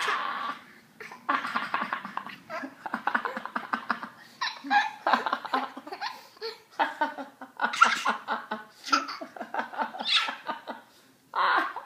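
A baby laughing hard in repeated fits of rapid, pulsing giggles, with a man's deeper laughter joining in.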